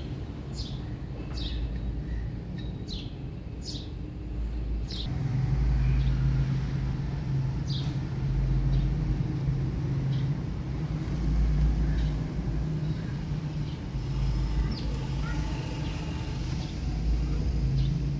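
A bird calls over and over in short, high, falling chirps, about two a second, for the first five seconds. From about five seconds in, a steady low mechanical hum with a rumble under it takes over as the loudest sound, with a few scattered chirps and small noises on top.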